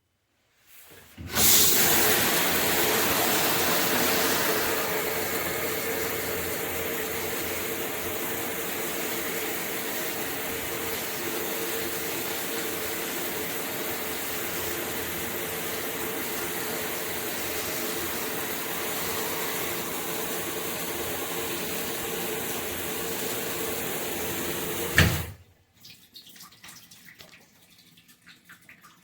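High-pressure shower head spraying a strong stream of water: it comes on about a second in, runs steadily, and is shut off abruptly near the end.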